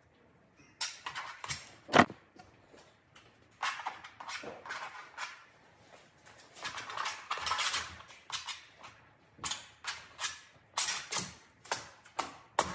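Palette knife scraping and dabbing oil paint onto canvas in short, uneven strokes, with longer scrapes in the middle and a sharp knock about two seconds in.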